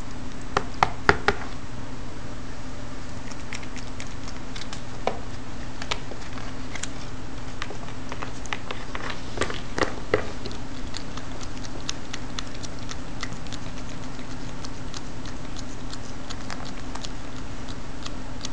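Cats pawing in a plastic tub of water after floating treats: scattered light splashes and taps, with a quick run of four sharp taps about a second in and a few more around ten seconds in, over a steady low hum.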